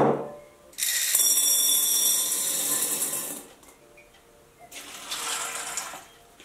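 Dried chickpeas poured into a glass bowl: a dense rattling patter lasting about two and a half seconds, after a single knock as the empty glass bowl is set down on the countertop. Near the end comes a softer pouring hiss as water is tipped from a glass over the chickpeas to soak them.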